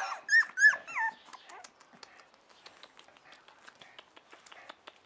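Four-week-old chow chow puppies whimpering: a few short, squeaky whines in the first second or so, each bending in pitch. After that only faint clicks and rustling are heard as the litter settles.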